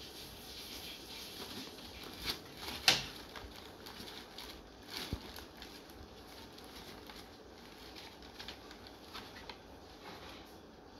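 Kittens scrabbling and climbing over a plastic bag and a cloth bag: rustling and crinkling with scattered light knocks and scrapes, the sharpest knock about three seconds in.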